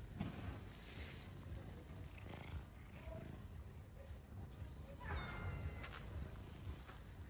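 Cats purring close up while being petted, a steady low rumble, with a short high meow about five seconds in.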